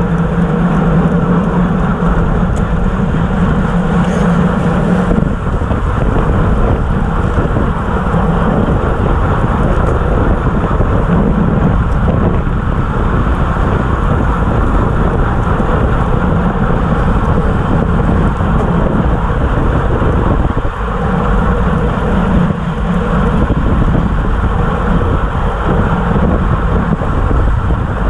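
Wind rushing over a bike-mounted camera's microphone on a road bike riding at about 30 to 35 mph. It is a loud, steady rush with a low hum that fades in and out several times.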